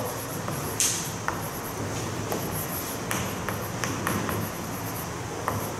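Chalk writing on a blackboard: a string of short, high scratching strokes and light taps of the chalk, over a steady room hum.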